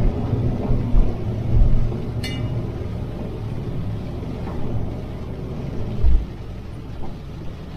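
Steady low engine and road rumble inside the cab of a vintage Toyota motorhome moving slowly on a wet road, with a few low thumps and one brief high squeak about two seconds in.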